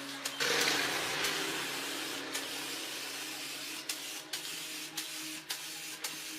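Compressed air hissing out in a long burst that starts about half a second in and slowly tails off, over a steady machine hum, with scattered clicks.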